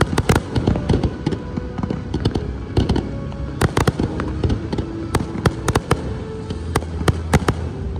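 Fireworks display: a fast, irregular run of sharp bangs from aerial shells bursting and crackling stars.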